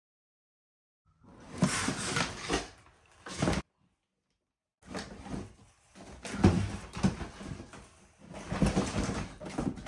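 Rustling and clattering of packaging and parts being handled during unboxing, in two stretches that start and stop abruptly, with dead silence at the start and for about a second in the middle.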